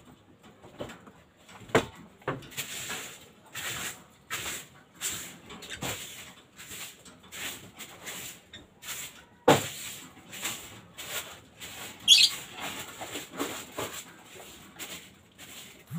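African lovebirds moving about in their cage: irregular taps, scrapes and rustles, with one short high call about twelve seconds in.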